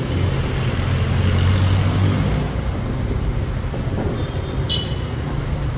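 Honda ADV scooter's single-cylinder engine idling steadily, a low even hum.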